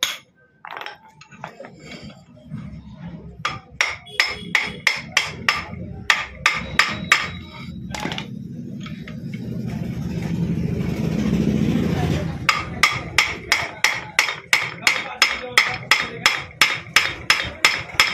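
Hammer blows on metal, struck in quick, even strokes at about three a second. Midway they stop, and a steady noise swells and fades for a few seconds before the hammering starts again.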